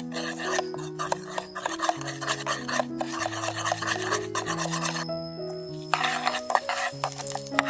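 Close-up eating sounds: dense scratchy chewing and crunching that breaks off briefly about five seconds in. Background music with sustained low notes plays underneath.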